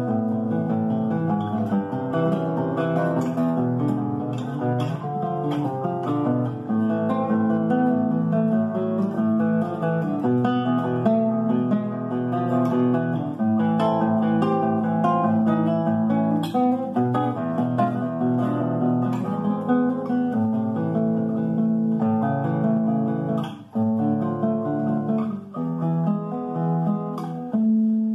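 Solo nylon-string classical guitar playing a milonga, a plucked melody over a steady bass line, with a couple of brief breaks a few seconds before the end.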